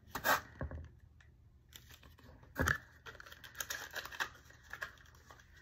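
Small clear plastic cosmetic packaging handled and picked open by fingers. A sharp click near the start, a louder tap about halfway, then a run of small ticks and crinkles.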